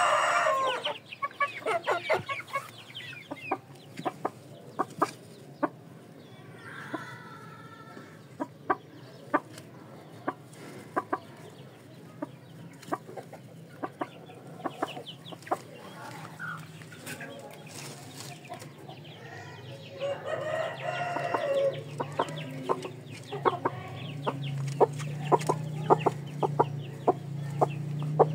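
A hen and a rooster clucking in short, scattered clucks. A rooster's crow trails off in the first second, and a longer call comes about twenty seconds in.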